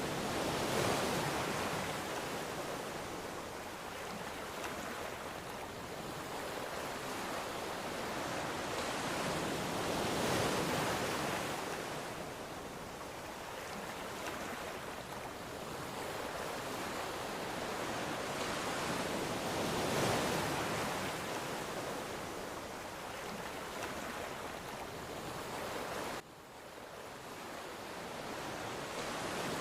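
Ocean waves washing onto the shore, each swelling and fading over roughly ten seconds. Near the end the sound drops away suddenly, then builds back up with the next wave.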